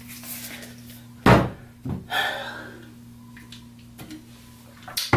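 A sharp hollow thunk about a second in, a plastic supplement tub set down on a bathroom counter, then a lighter knock just after and a few faint clicks, over a steady low hum.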